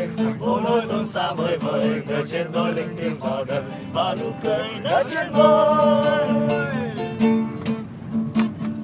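A group of young men singing together over a steady rhythmic beat inside a van's cabin.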